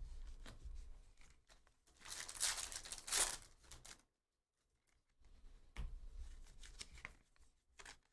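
A trading-card pack's wrapper is torn open about two seconds in, with a brief ripping rustle. A few seconds later the cards are handled and flipped through with light rustling and clicks.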